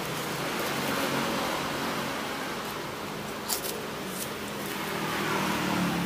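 Roadside traffic noise, with a motor vehicle engine hum that swells toward the end, and one sharp click about three and a half seconds in.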